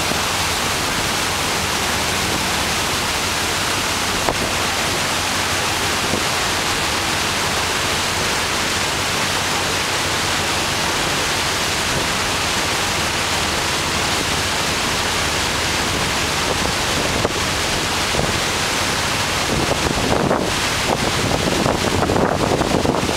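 Steady rushing noise aboard a moving boat, the wake water and wind on the microphone blending into an even hiss. In the last few seconds gusts start buffeting the microphone.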